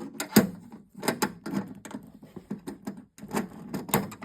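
Keys and a toolbox being handled: a rapid, irregular run of sharp clicks and rattles, pausing briefly about three seconds in.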